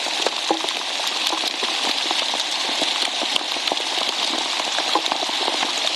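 Heavy thunderstorm downpour with hail: a dense, steady hiss of rain with many sharp ticks of drops and hailstones striking.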